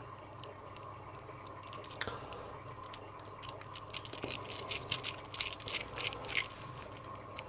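Small metallic clicks and scrapes from hands working on a brass padlock, quick and irregular, growing thicker over the last few seconds.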